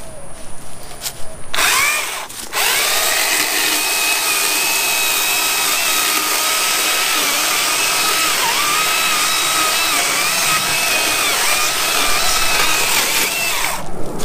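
Stihl MSA 161 T battery-powered chainsaw cutting into a wide shrub stump: a short burst about a second and a half in, then a steady electric whine for about eleven seconds whose pitch dips briefly now and then as the chain meets the wood, cutting off just before the end.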